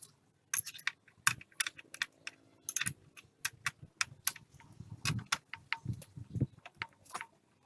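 Metal tools and parts clinking against each other in an irregular series of sharp clicks, with a few duller knocks about five to six and a half seconds in.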